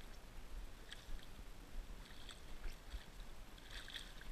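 Albino catfish on a fishing line thrashing and splashing at the surface of shallow water. It comes as a few short splashes, the biggest near the end.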